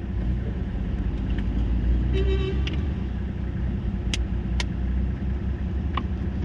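Logging truck's diesel engine running with a steady low rumble. A short high tone sounds about two seconds in, and a few sharp knocks come in the second half.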